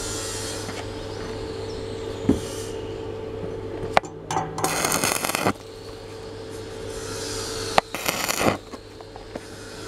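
Stick-welding electrode striking an arc on thin steel twice: each time a sharp snap, then crackling and sizzling, about a second and a half the first time and under a second the second. A steady electrical hum from the welding machine runs underneath, with a single thump a little over two seconds in.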